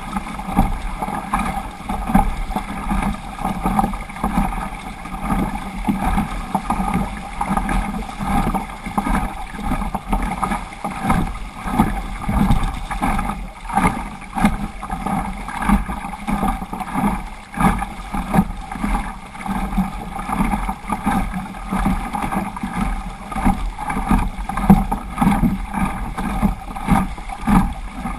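Double-bladed paddle strokes splashing in rhythm beside a plastic sit-on-top kayak, over a steady rush of water along the hull.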